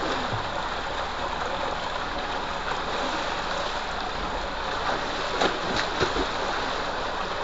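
Water gushing steadily from a pipe into a concrete bathing tank, with a couple of sharp splashes from people thrashing in the water about five and six seconds in.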